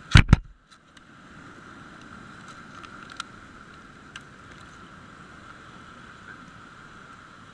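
Two loud knocks in quick succession just after the start, then a steady wash of surf on the rocks with a few faint clicks.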